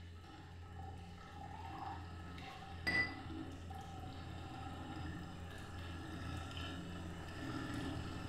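Water running from a tap into a sink, growing gradually louder, with a single sharp clink about three seconds in.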